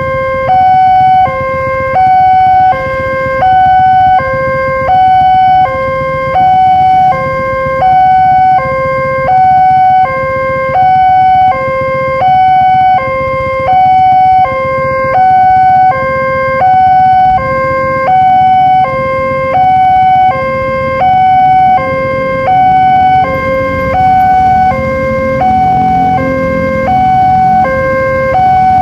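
Indonesian railway level-crossing warning siren sounding a tinny two-tone hi-lo wail, the tones alternating steadily about every half second, the signal that the crossing barrier is closing for a train. A low rumble underneath grows louder near the end.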